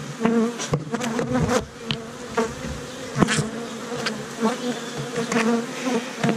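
Honey bees buzzing around an open hive, single bees droning past close by with a wavering pitch. Several sharp knocks and scrapes of a metal hive tool against the hive frames come through the buzzing.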